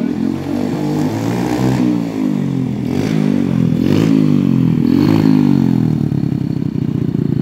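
Go-kart's small engine revving up and down several times as the kart drives past close by, then settling to a steady, even putter near the end.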